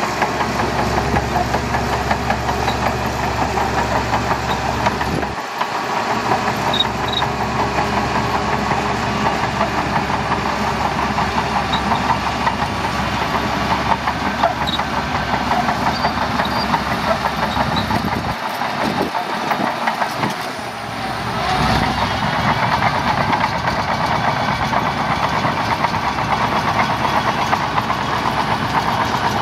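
Shantui DH17C2 bulldozer's diesel engine running steadily under work, with a dense, continuous mechanical clatter; the sound shifts abruptly about five seconds in and again around eighteen seconds in.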